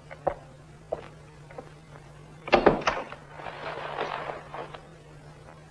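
A few light footsteps, then a door shutting with two heavy knocks about a third of a second apart, followed by about a second of rustling cloth as someone springs out of bed.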